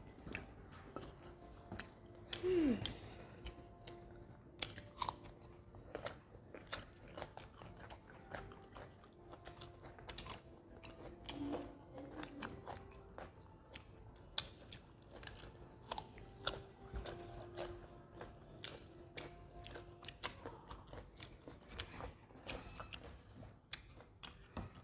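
Close-miked eating sounds of mango slices and glazed donut being bitten and chewed: a run of small wet mouth clicks and smacks. A short falling hum of a voice comes about two and a half seconds in.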